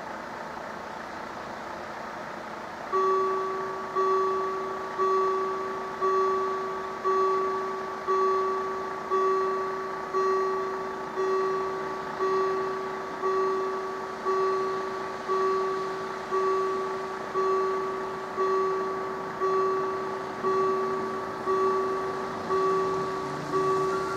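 Level crossing warning bell starting up about three seconds in, an electronic two-tone strike about once a second, each stroke fading away: the crossing is activating for an approaching train.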